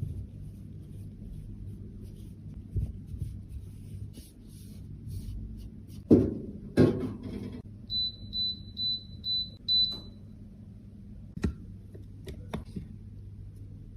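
Five short, high electronic beeps at about two a second, following two louder knocks of something being handled. A steady low hum runs underneath, and a few sharp clicks come near the end.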